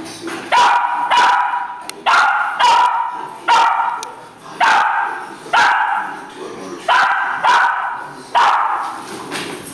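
Dog barking over and over in a steady rhythm, about one sharp bark a second.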